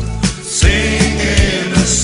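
A pop band plays a song, with a steady drum beat, bass and guitars. A held sung line comes in about half a second in and fades out near the end.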